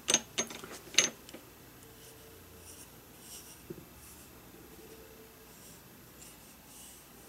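Hands handling a small finished wooden bowl: a few light taps and clicks in the first second, then faint rubbing as the bowl is turned over in the fingers.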